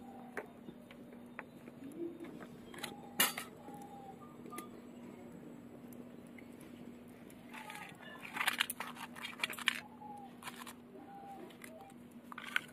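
Low-level background: a faint steady hum with scattered small clicks, busiest about two-thirds of the way through, and a few short faint tones.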